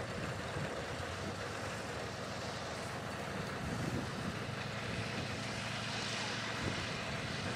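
Propeller engine of a STOL UT-23 ultralight biplane running steadily as the plane taxis, growing slightly louder in the second half.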